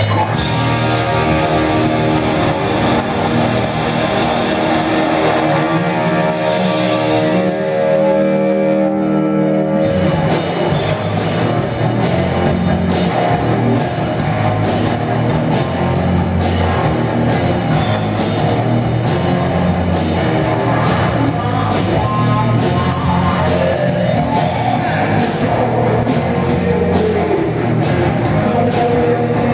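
Live rock band with electric guitar, electric bass and drum kit playing loudly. For about the first nine seconds the chords are held and ring out; then the full band comes in with a steady driving beat and bass line.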